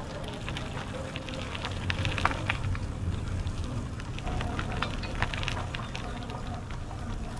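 Bicycle tyres rolling over a rough trail surface: irregular crackling clicks over a steady low rumble of tyre and wind noise.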